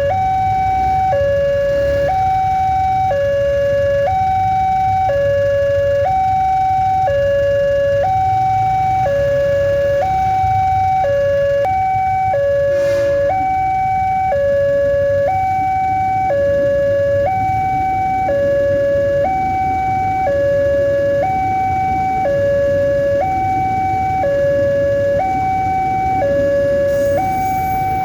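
Railway level-crossing warning siren sounding a steady two-tone high-low alternation, about one second per tone, over a low rumble.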